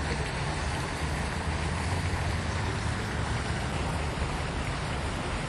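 Steady outdoor background noise: a low rumble with an even hiss over it, no distinct events.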